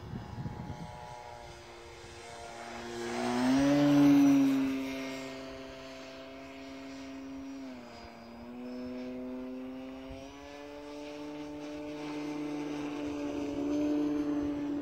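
Electric-powered GeeBee R3 model airplane flying past with a steady propeller whine. The whine swells to its loudest about four seconds in as it comes close. Its pitch drops briefly near eight seconds, then climbs and builds again.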